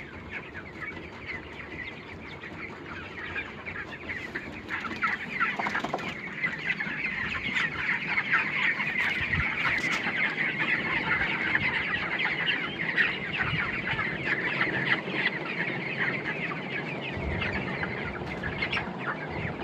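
A large flock of broiler chickens calling all at once, a dense, continuous chatter of overlapping chirps and clucks. It grows louder a few seconds in.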